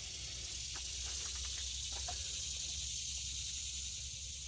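Steady high hiss of an insect chorus, with a few faint clicks and taps in the first two seconds as hands work at the diesel engine's fuel filters.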